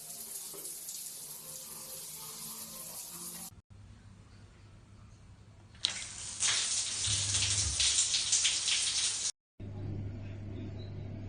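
Water running from a tap fed through a right-angle stop valve, in short cut-together stretches. The strongest, loudest gush comes about six seconds in and stops abruptly about three seconds later.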